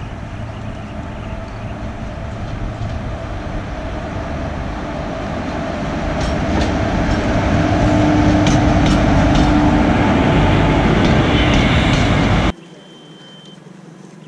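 Electric locomotive approaching on the rails. Its rumble grows louder as it nears, with a run of wheel clicks over rail joints and a steady hum at its loudest. About twelve seconds in, the sound drops off abruptly to a much quieter background.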